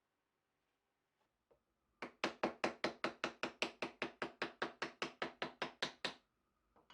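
A hand tool working wood: a quick, even run of about twenty sharp strokes, roughly five a second, lasting about four seconds and stopping abruptly.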